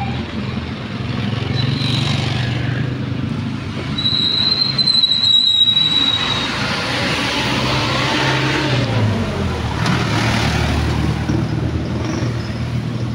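Street traffic: motor vehicle engines running and passing, with a low rumble that rises and falls. About four seconds in, a thin high tone sounds for about two seconds, falling slightly in pitch.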